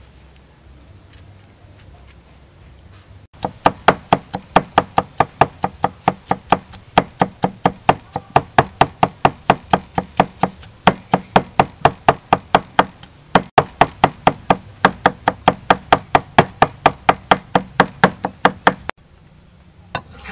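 Cleaver chopping garlic on a thick wooden chopping board: rapid, even knocks about four a second that start a few seconds in, pause briefly midway, and stop near the end.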